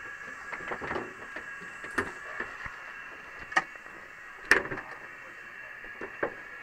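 Knocks and clatter of gear being handled in the cramped metal cabin of a B-25 Mitchell bomber: a few sharp knocks, the loudest about four and a half seconds in, among smaller clicks, over a steady background hum.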